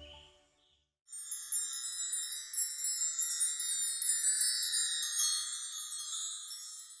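The tail of background music fades out, and after a brief silence a shimmering, high-pitched chime sound effect, like a wind chime, tinkles steadily for about six seconds and then fades away.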